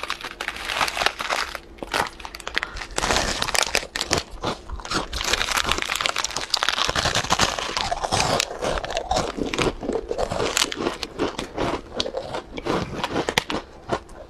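Close-miked crunching bites and chewing of a crispy rolled wafer egg roll, with the thin plastic wrapper crinkling in the hands.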